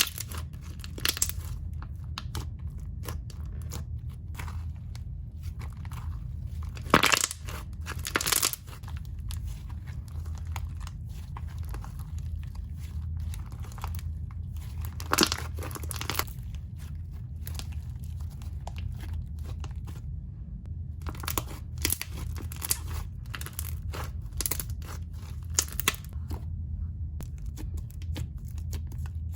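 Slime being squished, stretched and poked by hand, giving a run of sticky crackles, pops and crinkly crunching, with sharper pops about 7, 8 and 15 seconds in. A steady low hum runs underneath.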